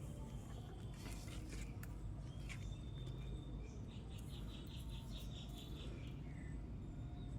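Faint outdoor bird chirps, including a quick run of about eight high notes around four seconds in, over a steady low rumble.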